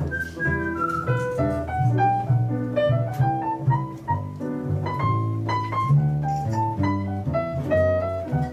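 Jazz piano and upright double bass playing together, with a whistled melody line finishing its phrase about a second and a half in, after which piano and bass carry on alone.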